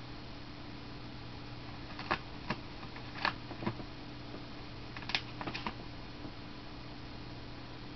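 A cat batting at paper and the plastic of a printer, making about seven light clicks and taps in two clusters, about two seconds in and again about five seconds in, over a steady low electrical hum.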